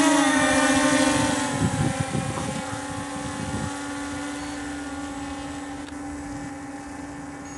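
Walkera Scout X4 quadcopter's four electric motors and propellers humming steadily at takeoff, growing fainter as it climbs away. Wind rumbles on the microphone for a couple of seconds near the middle.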